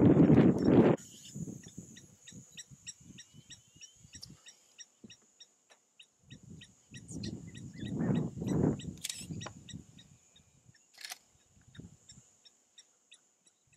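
Low, irregular rumbles of wind buffeting the camcorder microphone, loudest in the first second and again about eight seconds in. Under them runs a faint, steady series of short high pips, about three or four a second.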